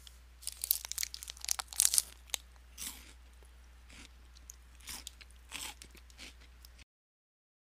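Someone crunching and chewing crunchy food up close: a quick run of crisp bites and crunches in the first two and a half seconds, then a few sparser chews, over a faint low hum.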